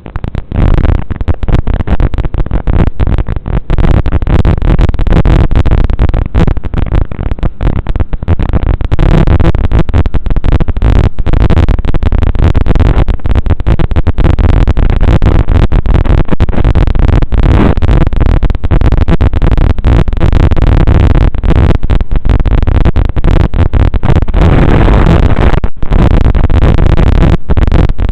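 FPV quadcopter's motors and propellers running in flight, with wind noise on the onboard mic. The sound is loud and choppy, with frequent brief dropouts.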